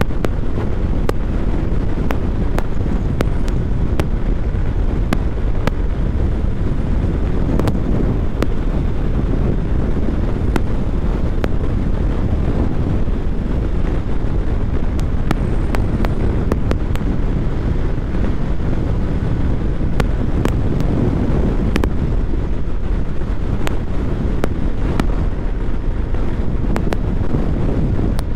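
Strong wind buffeting a helmet microphone on a motorcycle at speed, a steady low rumble of wind noise with scattered faint clicks.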